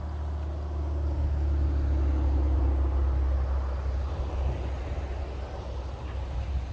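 Road traffic passing on a highway: a low engine and tyre rumble that grows louder over the first two or three seconds, then fades.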